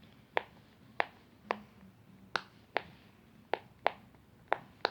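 Silicone pop-it fidget toy being popped bubble by bubble on its loud side: nine sharp pops, about two a second.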